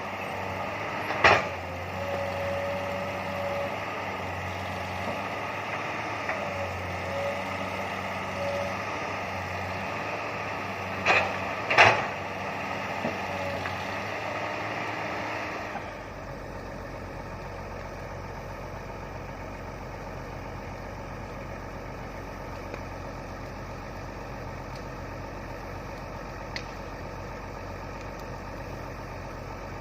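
Komatsu PC200 hydraulic excavator's diesel engine running steadily, with a few sharp knocks. About halfway through, the sound changes abruptly to a duller, steadier hum.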